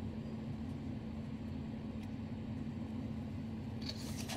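Steady low hum and background noise of room tone, with no distinct events.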